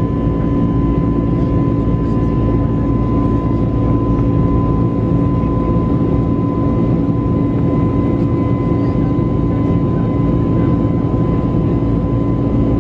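Steady drone of an Airbus A321neo's jet engines and rushing air, heard inside the passenger cabin in flight: a low rumble with a few steady tones held over it.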